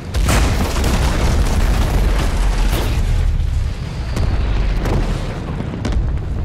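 A huge explosion goes off a moment after the start, then a sustained loud blaze of fire with several sharp cracks: the film sound effect of a green wildfire blast setting ships alight on the water.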